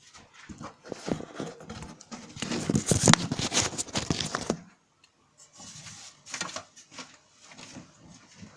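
Repeated squeaking creaks from the rear suspension of a Hyundai Elantra HD, around the fuel tank, loudest in the first half, stopping briefly about halfway, then going on more quietly. The owner puts the squeak down to worn rubber suspension bushings or possibly the fuel tank mounting.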